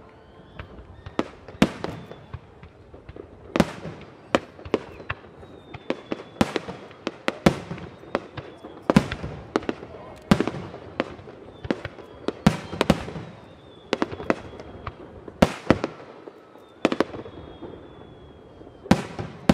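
Fireworks display: aerial shells bursting in an irregular string of sharp bangs, each followed by a short rolling echo, with faint high whistles between them.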